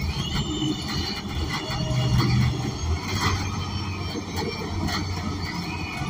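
Inside an ENC Axess BRT city bus: a steady low drone from its Cummins Westport L9N natural-gas engine and Voith automatic transmission, strongest about two seconds in. Scattered clicks and rattles from the cabin fittings sound over it.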